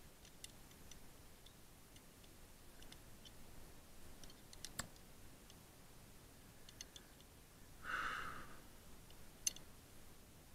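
Faint, scattered clicks and clinks of climbing hardware, carabiners and a rope ascender, handled by gloved hands on the rope, with a brief louder sound about eight seconds in.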